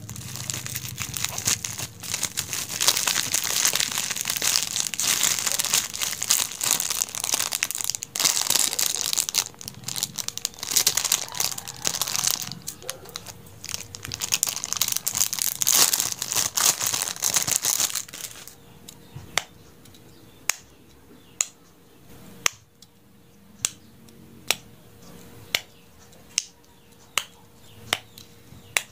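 Thin plastic packaging crinkling and rustling as a pop-it fidget spinner is unwrapped from its clear plastic bag. About two-thirds in the crinkling stops, and a run of single sharp pops follows, roughly one every two-thirds of a second, as the spinner's silicone bubbles are pressed.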